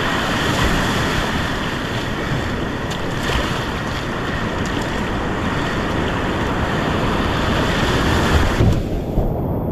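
Whitewater rapids rushing steadily, with wind buffeting the microphone. Near the end the hiss cuts out suddenly and the sound turns muffled.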